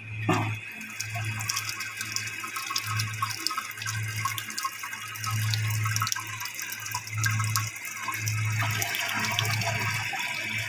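Water leaking from the supply-hose connection under a bathroom sink faucet, trickling and splashing in a steady hiss with small drips. A low hum pulses along with it about once a second.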